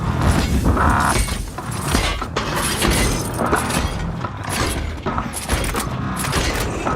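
Terminator robot servo sound effect: processed grinding metal with a growl-like low rumble and scattered clanks, running continuously. A brief higher-pitched grinding tone comes in about a second in, and the sound cuts off near the end.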